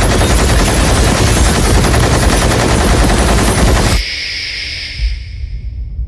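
Multi-barrel rotary machine gun firing a continuous, very rapid stream of shots that cuts off suddenly about four seconds in. A high ringing follows over a low rumble and fades away.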